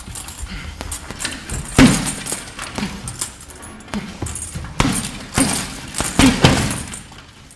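Gloved punches landing on a teardrop-shaped heavy bag: irregular sharp hits, some in quick pairs, the hardest about two seconds in and near the end.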